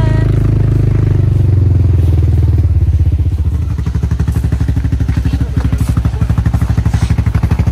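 Small utility-vehicle (UTV) engine idling at close range: a steady low hum that turns into a quick, even throbbing about three seconds in.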